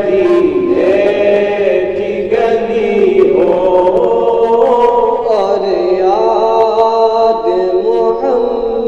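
Group of voices singing an Urdu naat in long held notes that slide between pitches.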